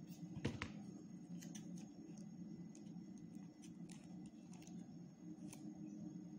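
Hands handling a wooden ice-cream stick and paper, pressing a paper fin into place: a sharp click about half a second in, then scattered faint ticks and rustles over a steady low hum.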